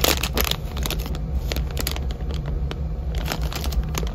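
Clear plastic zip-top bag of Lego minifigure parts crinkling as it is handled and turned in the hands, with many short crackles, over a steady low hum.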